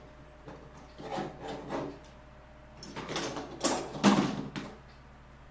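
Plastic toy parts being handled and fitted together on a table: scattered clicks, knocks and rubbing, the loudest knock about four seconds in.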